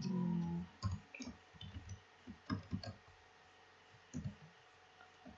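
Computer keyboard typing: a run of irregular key clicks, about a dozen keystrokes, after a brief low hum at the start.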